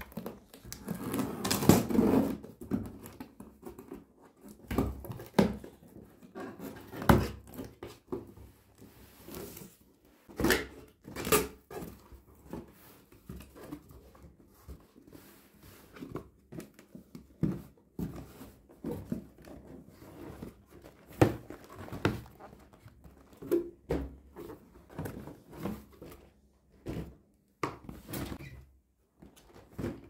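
Packing tape being torn off a cardboard box, a long rasping rip in the first couple of seconds, then the box's flaps and the boxed filter packs inside being handled: irregular cardboard rustles, scrapes and thumps.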